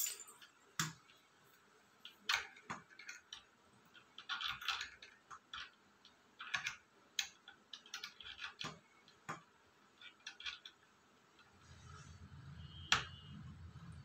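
Irregular small clicks and taps from a metal cupboard-door knob and latch being fiddled with by a toddler's hand. A low hum comes in near the end.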